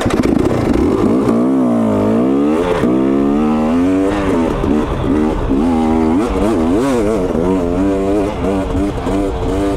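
2022 KTM 250 XC two-stroke dirt bike engine revving up and down under riding, its pitch dipping and climbing again several times with the throttle. The bike is running strongly and revving out cleanly after the air bypass screw and power valve screw were adjusted.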